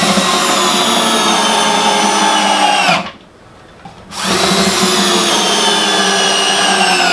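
Cordless drill driving the double-headed lag bolts into the wall, in two runs of about three seconds, one per bolt, with a short pause between. In each run the motor's whine sinks slowly as the bolt goes in, then winds down as the trigger is released.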